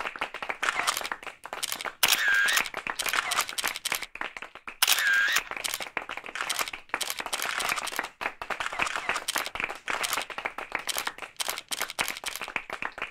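A dense, irregular run of sharp clicks, with a short tone that dips and rises again, heard twice, about two and five seconds in.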